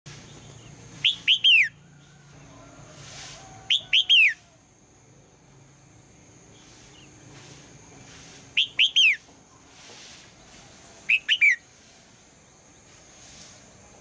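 Female red-whiskered bulbul calling: four short phrases, each of three or four quick whistled notes falling in pitch. This is the morning call a female gives to set a male singing.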